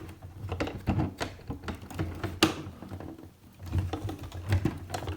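Irregular clicks and knocks of hard plastic from handling a Micro Machines Super Van City playset, pressing its release buttons and working its hinged top panel, which is sticking. One sharper click comes about two and a half seconds in.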